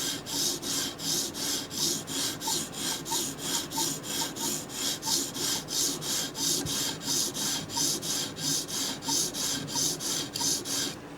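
Microtech Combat Troodon tanto knife blade stroked back and forth on a coarse 150-grit sharpening stone, a steady rhythmic rasping of about three strokes a second that stops abruptly near the end. This is the edge being reground on a low grit.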